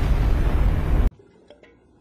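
Loud, continuous rumble of a large explosion that cuts off abruptly about a second in. It is followed by quiet with a few faint clicks.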